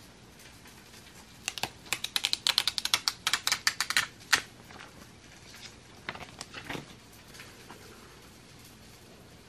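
Clear plastic protective film on a phone case crackling as it is pressed and peeled off: a quick run of sharp crinkly clicks for about three seconds, then a few softer ones.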